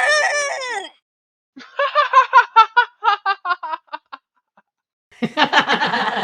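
A cartoon character's laugh: a run of quick, high, chopped 'ha-ha' pulses, then a louder, fuller burst of laughter about five seconds in.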